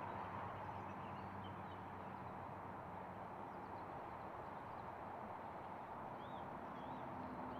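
Birds chirping faintly, a few short rising-and-falling calls mostly in the second half, over a steady low outdoor background hum.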